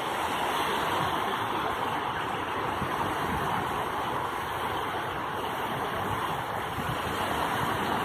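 Small waves of the Adriatic Sea lapping and washing in over shallow water at the shoreline, a steady rush of surf.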